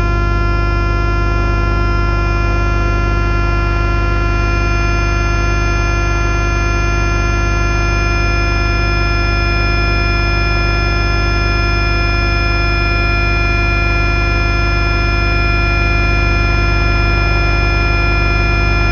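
Homemade DIY synthesizers playing a steady electronic drone through delay and reverb: a buzzing tone with many held overtones over a deep low hum, unchanging throughout.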